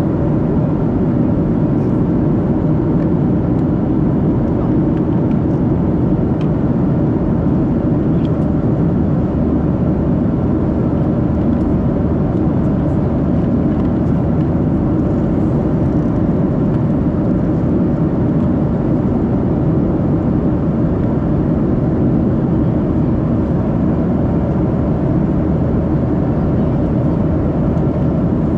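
Steady cabin drone of a Boeing 737-700 in cruise, the even rush of airflow and CFM56-7B engines heard from an economy seat.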